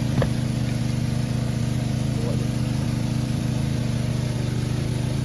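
Small engine running steadily at a constant speed with a fast, even throb, typical of the engine-driven pump used to drain a stream. There is a brief click just after the start.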